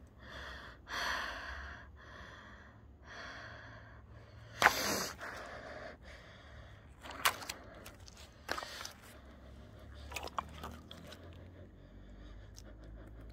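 Hands squeezing and handling latex balloons: rubbery rubbing and scattered crackles, with one sharp knock about four and a half seconds in.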